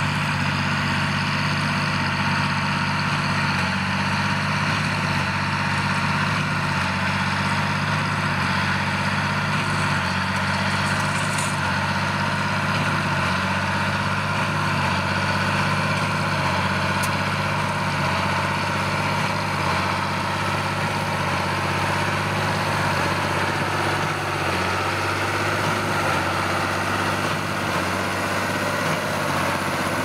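John Deere 8410 tractor's six-cylinder diesel engine running steadily under load, with the New Holland BB9080 big square baler working behind it, picking up and baling corn stalks.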